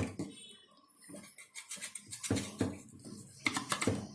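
Irregular light clattering and knocks of hard objects being handled.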